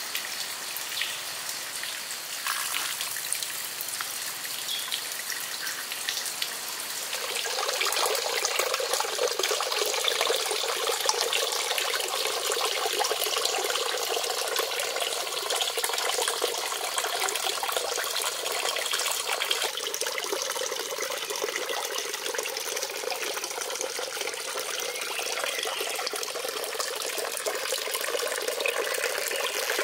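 Thin streams of water pouring from spouts into a shallow pond, a steady trickling and splashing that gets louder from about seven seconds in.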